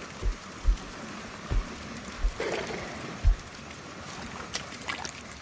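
Elephants wading at a waterhole: water sloshing and splashing over a steady outdoor hiss, with irregular low thuds and a louder swish about halfway through.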